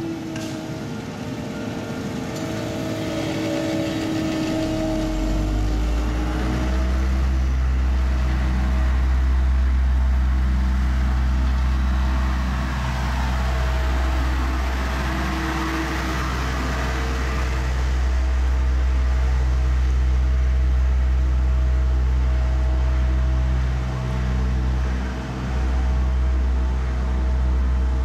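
Diesel engine of a double-drum asphalt roller running steadily while it compacts fresh asphalt, with a deep low rumble that sets in about five seconds in and holds.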